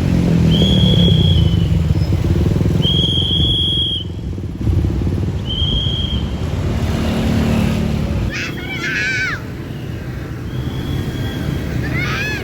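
A tour bus's diesel engine running close by, loudest in the first few seconds. Three short, steady high-pitched tones sound over it in the first six seconds, then warbling high tones about eight seconds in and again near the end.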